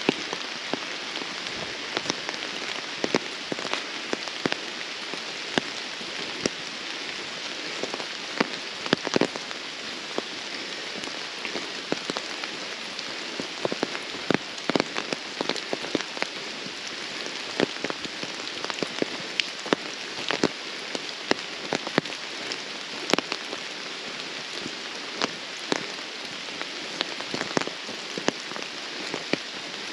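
Steady rain pattering through woodland: an even hiss with many irregular drop ticks close by.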